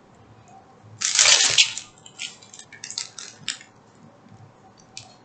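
Small clear plastic bags of diamond-painting drills being handled: a loud crinkling rustle about a second in, then a run of lighter crinkles and clicks.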